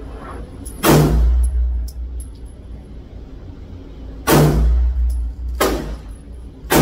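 Handgun shots in an indoor range, each a sharp crack with a booming echo off the walls: one shot about a second in, then three more a little over a second apart near the end.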